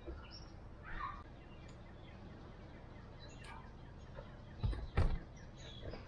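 Birds chirping now and then in the background, with two dull thumps close together near the end as a cooler and a plastic bin are moved about in a doorway.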